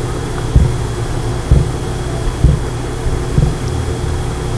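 Steady low mechanical rumble, like a motor running, with a faint steady whine above it and a low thump about once a second.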